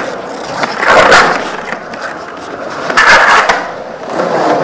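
Skateboard wheels rolling over the concrete of an empty swimming pool. The rolling roar swells loudly twice, about a second in and again about three seconds in, and eases between.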